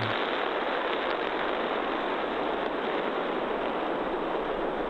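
Starship Super Heavy Booster 7's Raptor 2 engines, 31 of its 33, firing together in a static fire test: a loud, steady rushing noise that holds at an even level throughout.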